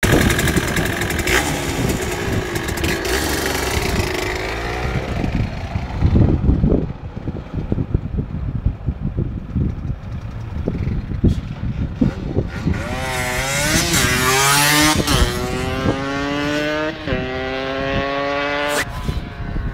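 Yamaha DT125X 125 cc two-stroke single with a full Arrow exhaust, de-restricted, revving hard close by. After a quieter stretch it accelerates away through the gears, its pitch climbing and dropping back at each of several gear changes.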